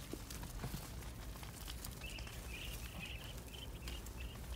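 Hands scraping and breaking clumps of dry earth from a dirt bank, with scattered dull knocks of falling soil. From about two seconds in, a high chirping repeats a few times a second.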